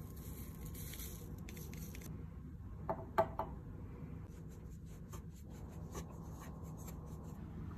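Metal spoon stirring and scraping crushed Oreo crumbs in a ceramic bowl, with light clicks and scrapes, and a few louder taps about three seconds in. A soft hiss of powder being poured comes in the first two seconds, over a steady low hum.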